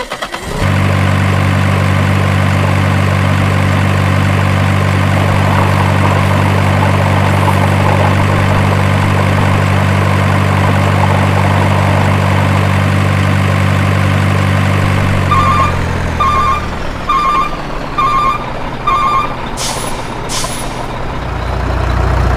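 Truck sound effect: a truck engine running steadily, winding down about fifteen seconds in, then a reversing alarm beeping five times and two short air-brake hisses near the end.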